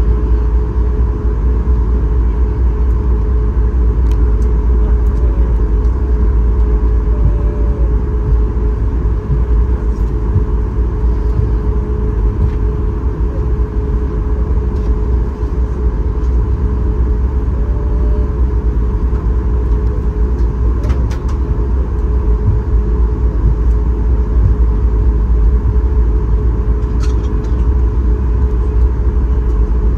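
Cabin sound of a Boeing 737 MAX 8-200 taxiing before takeoff: its CFM LEAP-1B engines at idle give a steady hum with a constant tone over a low rumble. A few faint clicks are heard now and then.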